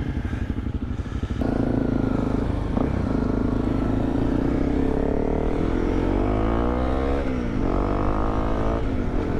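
Honda CRF250L single-cylinder dual-sport motorcycle engine pulling away and accelerating through the gears. Its note climbs in pitch, then falls sharply at a gear change about seven seconds in, and climbs again before another shift near the end.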